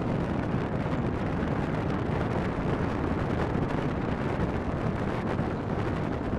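Wind blowing across the microphone: a steady rushing noise, heaviest in the low end, with no distinct events.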